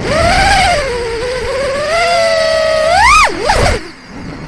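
4-inch FPV quadcopter's brushless motors (2203 3450kv) and Gemfan 4052 props whining, the pitch sagging and holding, then a sharp throttle punch about three seconds in, a quick chop and a short blip before the motors drop low near the end. Heard from the camera mounted on the quad, with a low rumble of wind under the whine.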